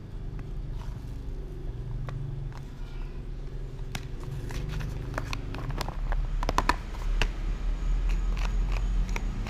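Light clicks and knocks of a clear plastic tub being handled on a plastic cutting board, with chopped onion pieces being moved in it. The clicks come in a cluster in the second half, over a steady low rumble.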